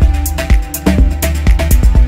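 Music with a steady beat and heavy bass drum.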